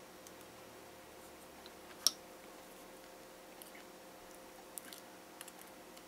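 Faint clicks and taps from handling a wooden clothespin while a thumbtack is pressed into it with pliers, with one sharper click about two seconds in and a few small ticks near the end, over a faint steady hum.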